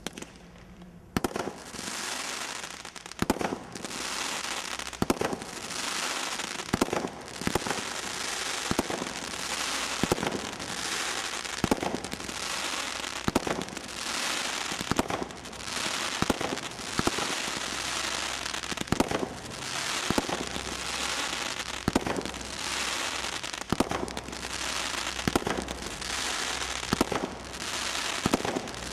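Brothers Pyrotechnics 'Acid Rain' 24-shot combination roman candle barrage firing. From about a second in there is a sharp launch bang roughly every second, and the stars burst with crackling and hiss in between the bangs.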